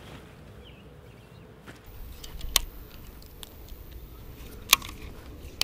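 A few sharp clicks, two of them loud and about two seconds apart, as a baitcasting rod, reel and lure are handled, over a low rumble.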